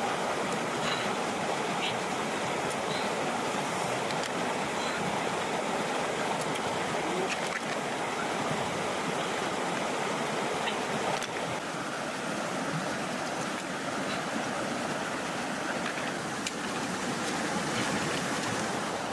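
Shallow stream running steadily over rocks, with a few faint ticks over the water sound.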